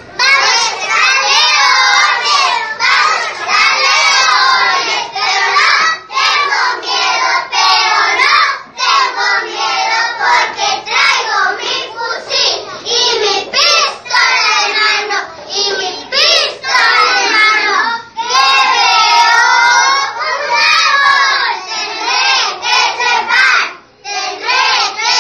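A group of young children singing a song together, loudly and in unison.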